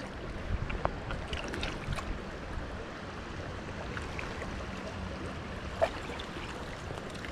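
Steady rush of flowing stream water, with scattered light clicks and taps; the sharpest click comes about six seconds in.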